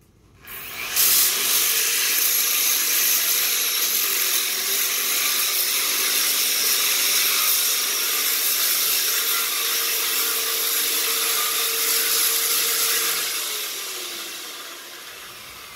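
Handheld variable-speed electric sander with coarse sandpaper working along the edge of a wooden beam, easing the corner. It comes up to speed about a second in, runs steadily with a motor hum under the sanding noise, and winds down near the end with a falling tone.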